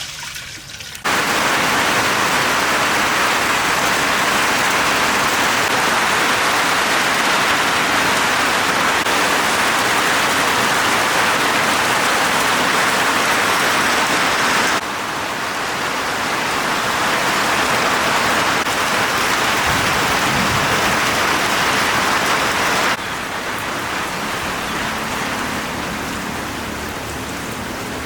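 Heavy rain falling steadily as a dense hiss. It comes in abruptly about a second in and drops suddenly in level twice, around the middle and near the end, as one stretch of rain is cut to the next.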